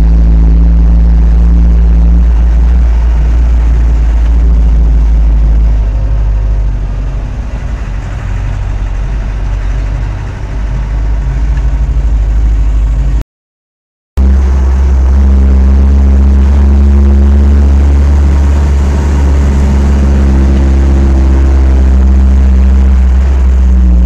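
Vehicle engine running under way, heard loud and heavy in the low end from inside the cab, its drone shifting in pitch with speed. The sound cuts out completely for about a second midway, then returns.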